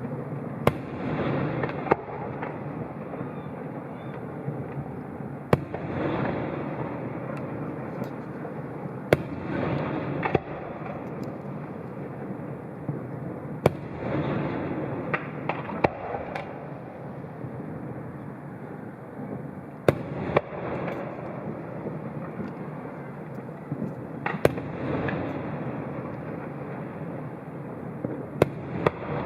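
Aerial fireworks shells bursting: a sharp bang every few seconds, each followed by a rolling rumble that dies away over a second or two.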